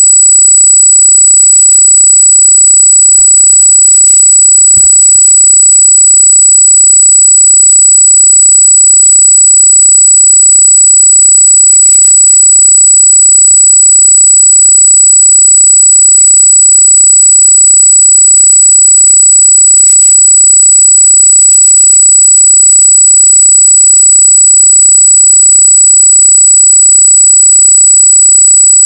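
A loud, steady high-pitched squeal, a constant electronic whine of unknown origin on the trail camera's sound track. Faint scratchy rustles come through underneath now and then.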